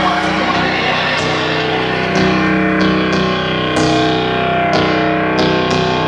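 Live electronic music played on synthesizers: held, distorted chord tones with short, sharp percussive hits coming at irregular intervals.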